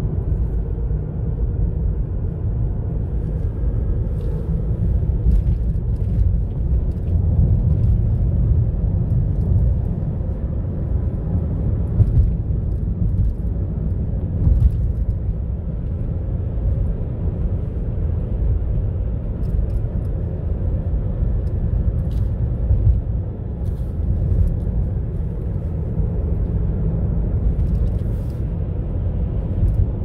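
Car driving on a paved road, heard from inside the cabin: a steady low rumble of tyres and engine, with a few faint clicks.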